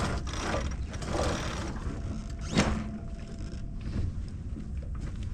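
Clicks and knocks of sailboat deck gear on a J105, with one sharp knock about two and a half seconds in and a brief steady whine in the middle, over a low rumble.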